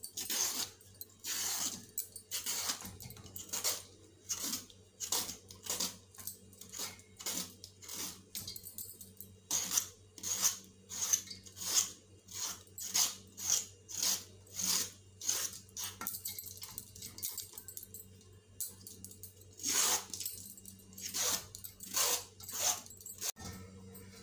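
Kitchen knife scraping the skin off long green vegetables over a steel colander: a run of short rasping strokes, about one and a half a second, which pause for a few seconds late on and then resume.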